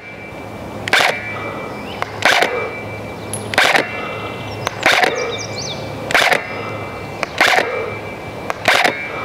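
An airsoft rifle firing single shots at a steady pace: seven sharp cracks, about one every 1.3 seconds.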